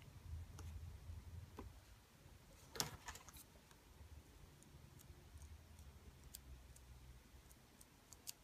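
Near silence with a low hum and a few faint clicks and taps, the clearest about three seconds in, as fingers press and handle a paper heart shaker clip.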